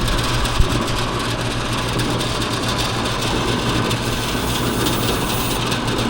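Old Coleman package air-conditioning unit running: a steady fan rush with a low electrical hum, and a single click about half a second in. The compressor is not running, a fault the technician puts down to a bad capacitor or a failing compressor.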